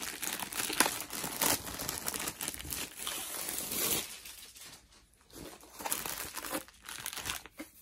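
Crinkly packaging being handled: dense crackling and rustling with sharp little crackles for about four seconds, then quieter, scattered rustles.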